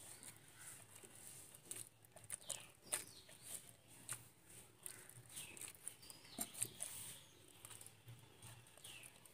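Faint squishing of boiled chana dal, carrots and beetroot being crushed by a metal cup pressed into them in a pressure cooker, with a few scattered light clicks of metal on metal.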